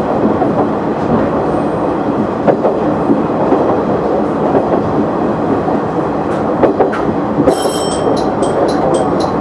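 KiHa 100 diesel railcar running along the track, a steady rumble of engine and wheels with a few sharp clicks as the wheels cross rail joints. Near the end a bell starts ringing rapidly, about three strokes a second.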